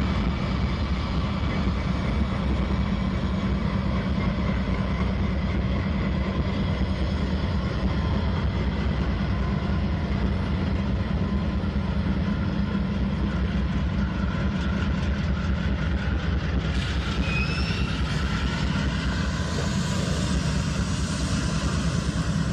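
A lash-up of Norfolk Southern diesel-electric locomotives, including a rebuilt GE AC44C6M, moving past close by, their engines running with a steady low drone under a spread of rail noise.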